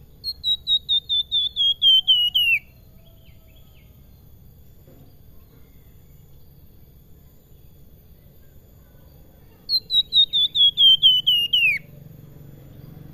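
Caged flamboyan (Horsfield's babbler) singing two phrases, each a quick run of about a dozen clear whistled notes that step down in pitch over about two seconds. The first phrase comes at the start, the second near the end.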